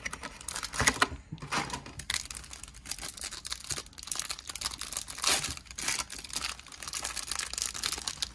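Clear plastic wrapper around a stack of trading cards crinkling and tearing as it is opened by hand, in irregular crackles, louder about one second in and about five seconds in.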